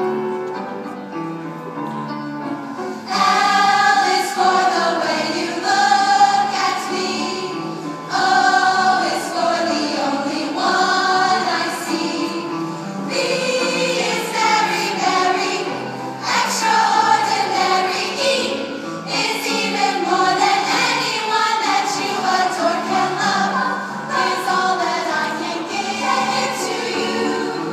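A women's choir singing, softly for the first three seconds or so and then louder and fuller.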